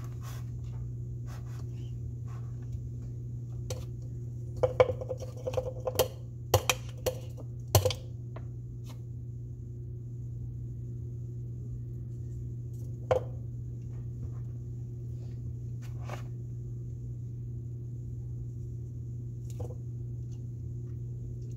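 Metal spoon knocking and scraping against a plastic ice cream tub and a blender cup while ice cream is scooped in: a run of sharp clinks and knocks between about five and eight seconds in, then a few single knocks later, over a steady low hum.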